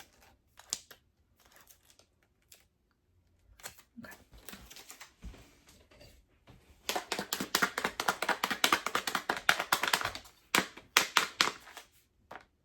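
The plastic film lid of a microwave rice pack being stabbed and punctured over and over. There are a few single pokes at first, then a fast flurry of sharp taps and clicks for about three seconds, and a few more near the end.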